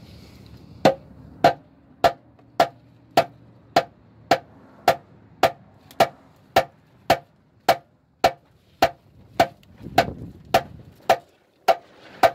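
Rubber mallet tapping the rusty steel oil pan of a 2005 Subaru Outback's EJ25 engine, about twenty even knocks at a little under two a second. The taps are meant to jar loose the heat-softened RTV sealant holding the pan to the block.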